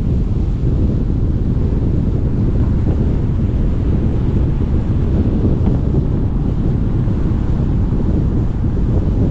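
Steady low rumble of wind buffeting the microphone of a moving car, mixed with road noise.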